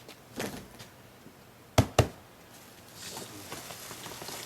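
Two sharp knocks in quick succession about two seconds in, then rustling and scraping, as the top cover of a large cardboard telescope box is lifted off and set down to expose its packing foam.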